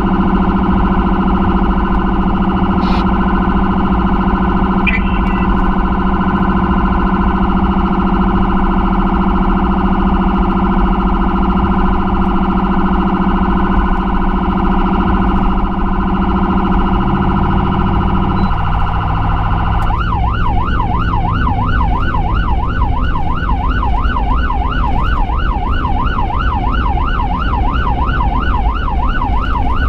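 Emergency vehicle's electronic siren heard from inside the responding vehicle as it drives. It holds a steady shrill tone, then about two-thirds of the way through switches to a fast yelp of about three cycles a second, over a steady low engine drone.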